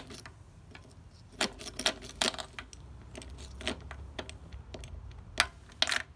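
A motorcycle key and its keyring jangling and clicking as the key is pushed into and worked in a sticking Kawasaki Z1000 ignition lock, pressing graphite lubricant into the cylinder. Several short metallic jingles come in the first half, then two sharp ones near the end.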